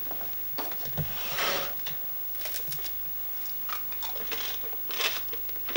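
Crisp crust of a freshly baked loaf crackling and crunching as a piece is broken off and eaten, in a few short, scattered crunches.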